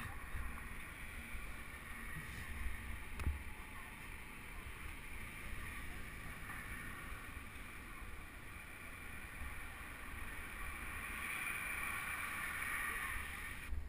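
Bicycle tyres rolling on pavement, carried strongly through the camera mount, with wind on the camera's microphone: a steady rushing rumble that grows a little louder near the end. A single sharp knock about three seconds in.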